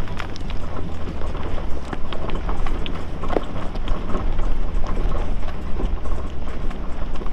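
Lifted Nissan Pathfinder R50's V6 engine running low and steady while the tyres crawl over rocks, with irregular knocks and clicks of rock under the tyres and from the suspension.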